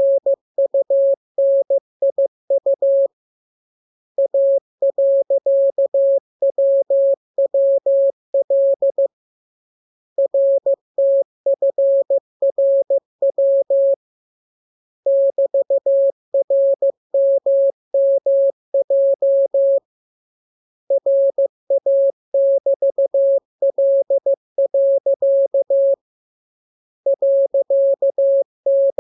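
Morse code (CW) practice signal: a single steady tone keyed on and off in dots and dashes, sent as groups of characters with a pause of about a second between groups.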